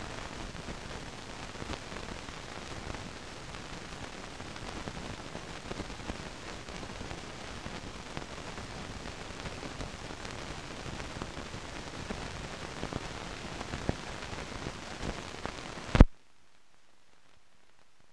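Steady hiss and crackle of a soundless archive film transfer, flecked with small clicks. About sixteen seconds in, a loud pop, then only a much fainter hiss.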